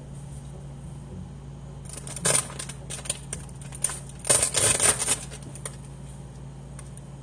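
Thin plastic bag crinkling and rustling as it is handled, in two bursts: about two seconds in and again around four to five seconds, with a few lighter crackles between, over a steady low hum.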